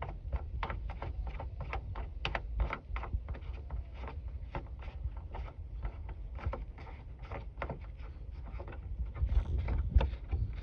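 Light irregular clicks and rattles, several a second, from a taillight-assembly fastener being turned on by hand and the plastic housing being handled, over a low rumble.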